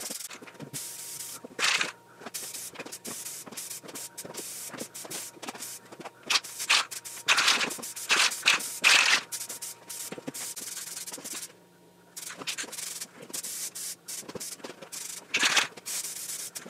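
Aerosol can of SEM Color Coat satin black spray paint hissing in several short bursts, most of them clustered in the middle and one near the end, as further light coats go onto plastic door panels. Light clicking and rattling is heard between the bursts.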